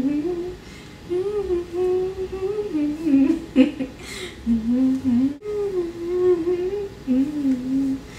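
A young woman humming a pop song melody in a few phrases, with short pauses between them.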